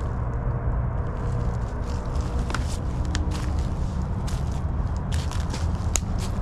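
Footsteps crunching through dry leaves, twigs and scattered debris, with irregular crackles and snaps and a sharper snap near the end, over a steady low rumble.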